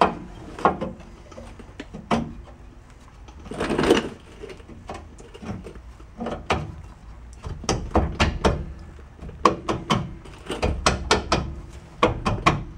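Metal parts clinking, knocking and scraping as the leaf spring's U-bolts and bottom plate are worked into place by hand under the axle. The knocks come in irregular clusters, with a short scrape about four seconds in and a denser run of knocks in the second half.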